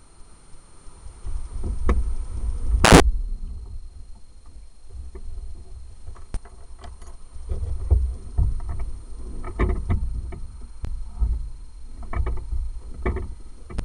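Wind buffeting the microphone on a moving motorcycle: an uneven low rumble that swells and fades, with scattered clicks and rustles from the dog carrier and jacket. A loud burst of noise comes about three seconds in.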